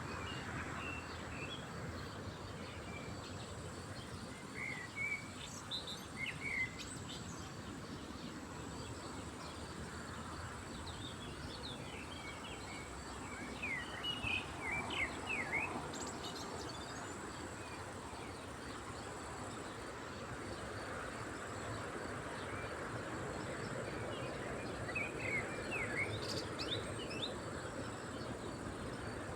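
Lakeside ambience: small birds chirping in three short clusters of quick high notes, over a steady hiss and a thin, steady high tone.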